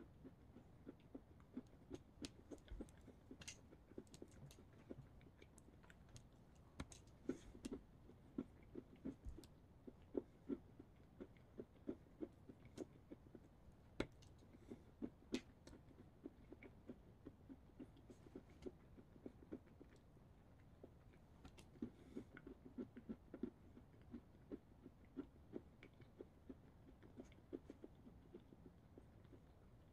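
A person chewing a dense, dry Mayday apple cinnamon ration bar: faint, steady mouth crunching, a few chews a second, with occasional sharper crumbly clicks.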